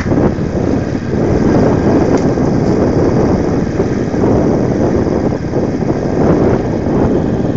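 Motorcycle riding along a rough dirt track, heard from a camera mounted on the bike: the engine running under wind rushing over the microphone, a steady loud noise without a clear pitch.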